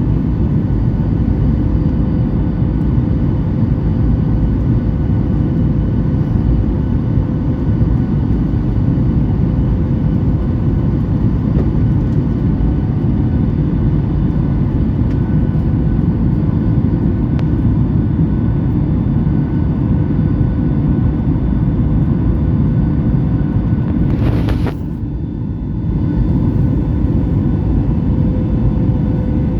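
Steady roar of a Boeing 737 MAX 8's CFM LEAP-1B jet engines and rushing air inside the passenger cabin, deep and even, with a steady hum-like tone running through it. Near the end a brief sharp noise is heard, and for a second or so afterwards the sound is quieter.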